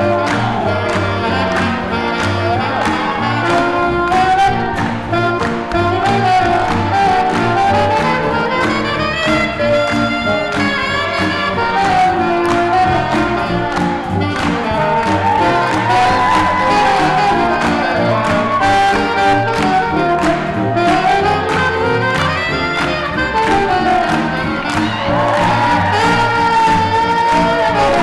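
A live swing big band playing jazz: trumpets and saxophones carry the melody over upright bass and drums keeping a steady beat.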